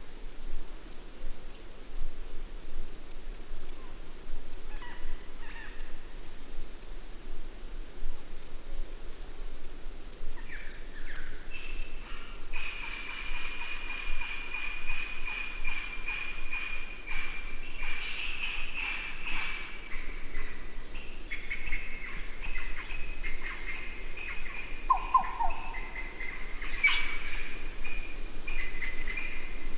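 Forest insects chirring: a high, fast-pulsing trill runs throughout, and a lower rasping trill joins about twelve seconds in. A few short chirps break in, one near the middle and one a little after.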